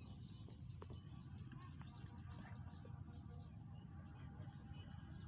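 Faint outdoor ambience: a steady low wind rumble on the microphone, with faint, scattered chirps of distant birds.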